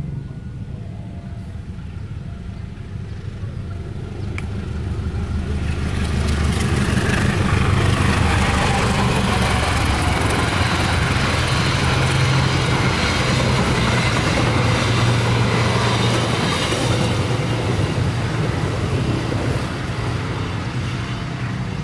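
Passenger train hauled by a diesel-electric locomotive passing at speed. The locomotive's low engine drone builds as it nears, then about five seconds in comes the loud rushing clatter of the coaches over the rails, which lasts about ten seconds and eases off near the end as the train draws away.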